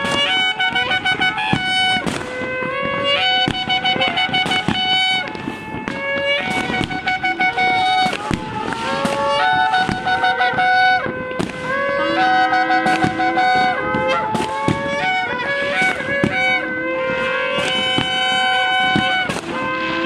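Shofar blasts: long held horn notes that slide up into pitch and step between a few pitches, with fireworks banging and crackling throughout.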